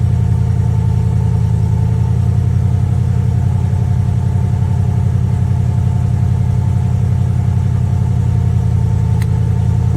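1995 Jeep Grand Cherokee's 5.2-litre V8 idling steadily on a cold morning, warming up after a hard cold start.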